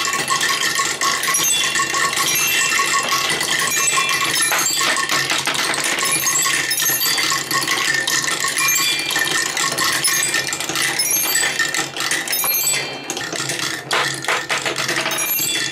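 Marbles rolling and clattering through a Quadrilla wooden and plastic marble run, a dense, continuous stream of clicks and rattles with short ringing notes mixed in.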